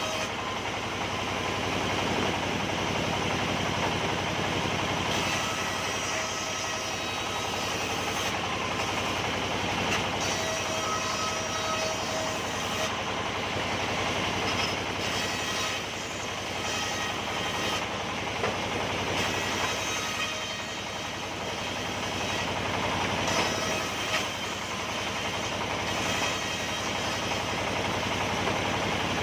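Sawmill saw running and cutting timber beams: a steady, dense mechanical noise with a faint tone that comes and goes.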